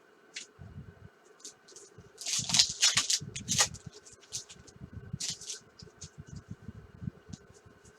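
Baseball trading cards handled and flipped through by hand: a run of short card-stock rustles and clicks, busiest and loudest about two to four seconds in, with soft knocks against the table.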